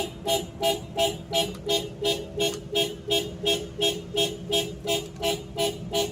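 A 2009 Suzuki Grand Vitara 2.4's anti-theft alarm beeping, a steady run of short beeps at about three a second. The alarm was set off because the car was unlocked with the manual key instead of the keyless remote, which fails from signal interference.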